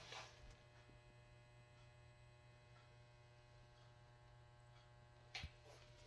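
Near silence: a faint, steady low electrical hum, with one brief knock about five seconds in.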